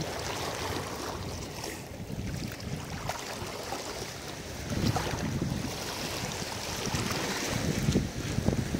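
Wind buffeting the microphone, with small waves lapping and splashing against shoreline rocks; the gusts swell about halfway through and again near the end.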